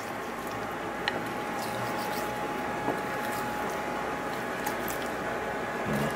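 Soft, wet squishing of fingers rubbing salt and pepper into the scored skin of a whole sea bass, with a couple of light clicks, over a steady background hiss.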